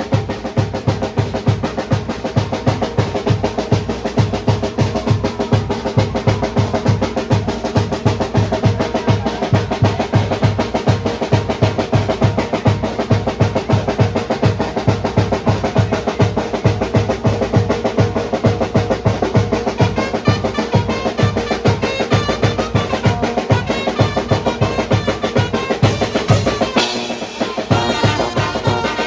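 A Mexican brass band (banda) playing tlacololero music: fast, steady drumming under held notes. The drums drop out briefly near the end.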